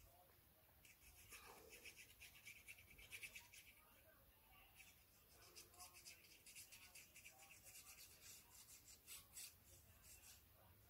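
Faint glue stick rubbed along a narrow strip of paper: a run of short, scratchy strokes, then a brief pause, then more strokes.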